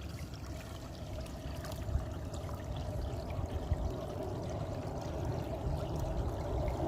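Water running and trickling steadily in a farm irrigation channel, growing a little louder near the end.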